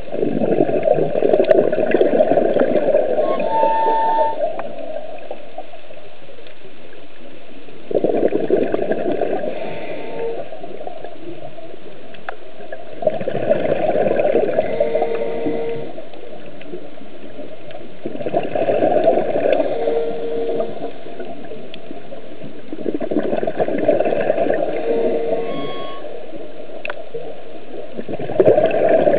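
Scuba regulator breathing underwater: exhaled bubbles rumble out in surges about every five seconds, six times, with a quieter hiss between them. Short squeaky tones from the regulator come near the ends of most exhalations.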